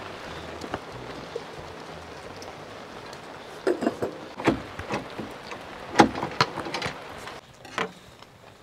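Steady hiss of rain, with a run of sharp metallic clinks and knocks from about three and a half seconds in as the enamel kettle's lid is handled on the stove top. The rain cuts off a little before the end.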